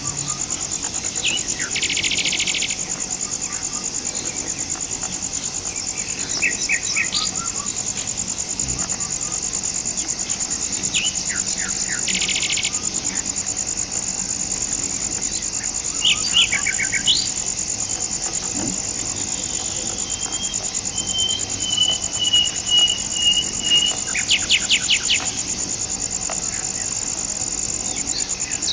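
Steady, high-pitched drone of a forest insect chorus, with scattered bird chirps and calls over it, including a short trill and a quick run of repeated notes in the last third.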